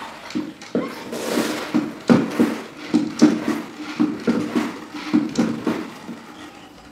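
A plastic spin-mop bucket's spinner basket being spun by pumping the mop handle up and down, wringing the wet microfiber mop head: repeated clacks about two to three a second over a steady whirring hum.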